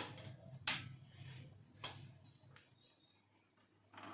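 A few sharp clicks, then just before the end the repaired 200 A inverter welding machine's cooling fan starts up, a rising whir as it spins up on first power-on.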